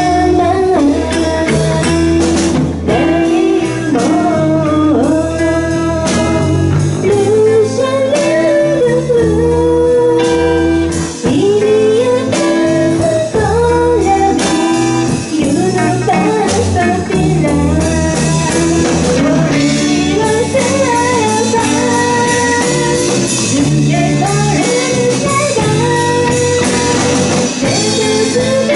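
Live band playing: a woman's voice sings a wavering, gliding melody over electric guitars and drums.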